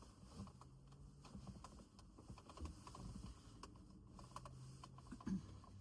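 Near silence with faint, scattered light clicks and taps, and one slightly louder knock near the end.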